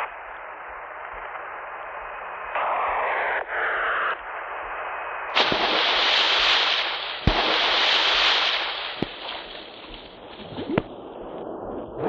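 Sound-effects montage: a muffled, radio-like hiss with a louder burst of static, then about five seconds in a loud hissing rush broken by sharp cracks every second or two, fading near the end.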